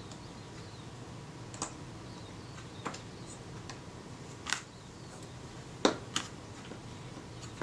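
Scattered small sharp clicks and taps of the Kodak Retina IIIc's rangefinder parts being handled and fitted together, the metal arm being set in place. About six separate clicks, the loudest two close together about six seconds in.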